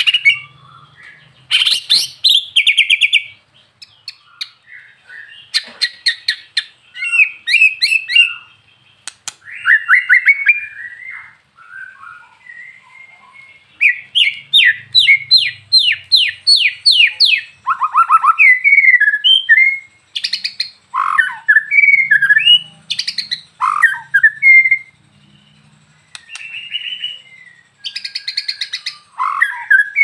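A male white-rumped shama (murai batu) sings a long, varied song: clear whistled phrases mixed with fast rattling trills and sharp clicking notes, in bursts broken by short pauses.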